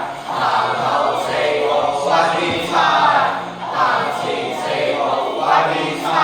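A group of voices singing together with music.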